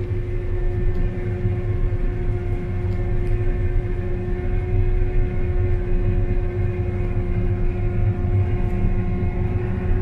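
CLAAS Lexion combine harvester running steadily while harvesting, heard inside the cab as a low rumble with a constant hum.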